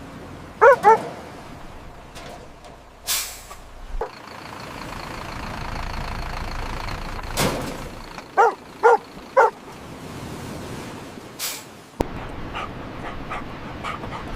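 Golden retriever barking: two quick barks about a second in, then three more some seconds later. Under it runs a steady vehicle background with a few short bursts of hiss.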